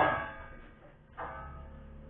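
A hammer striking the ice and metal walls inside a freezer to break the built-up frost loose, each blow leaving a short metallic ring. One blow lands right at the start and another just past a second in.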